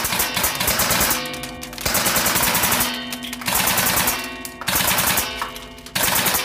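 GBLS DAS airsoft M4 rifles firing in rapid full-auto bursts, a fast clatter of shots with the bolt cycling, about five bursts of roughly a second each.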